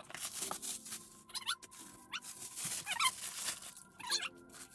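Crumpled packing paper and plastic wrap rustling and crinkling as a part is pulled out of a cardboard box, with several short squeaky glides.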